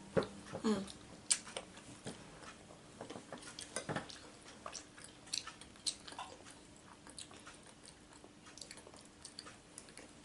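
Close-up mouth sounds of someone chewing and biting food, with scattered short crunchy clicks and smacks.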